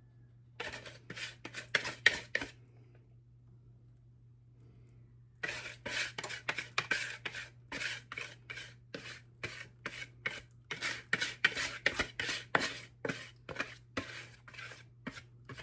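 A utensil scraping the last chocolate cobbler batter out of a mixing bowl in quick repeated strokes. There is a short run of strokes, a pause of about three seconds, then a longer run.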